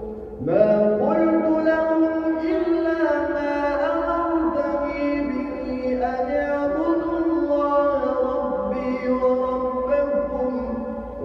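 A man chanting an Arabic supplication in long, drawn-out melodic phrases, notes gliding up and down with a rising note about half a second in: an imam's du'a during Taraweeh prayer.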